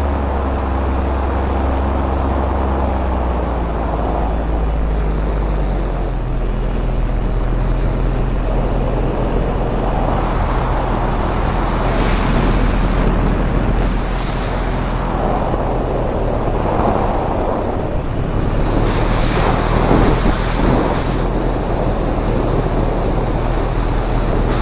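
Paramotor's backpack engine and propeller running steadily in flight, its low drone under heavy wind rush on the microphone. The wind gusts louder about halfway through and again near the end.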